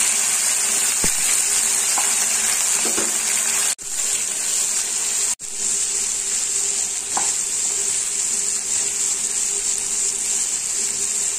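Cubes of raw papaya frying with onion in hot mustard oil in a pan: a steady sizzle, stirred with a wooden spatula. The sizzle cuts out for a moment twice, a few seconds in.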